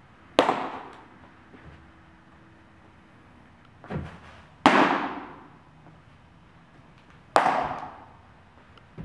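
Three sharp pops of thrown baseballs smacking into a catcher's mitt, each ringing on in a long echo off the metal walls of the building. A duller thud comes just before the second pop.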